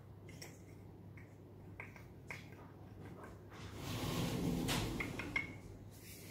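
Citric acid powder poured from a clip-top glass jar into a stainless steel bowl: a soft rushing hiss about three and a half seconds in that lasts a second or so. Faint clicks and taps of the glass jar and its lid come before and after it.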